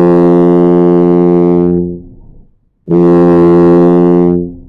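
Tuba playing two long, steady notes at the same pitch, one after another with a short gap: a full, clear first sound, the model tone a beginner should aim for.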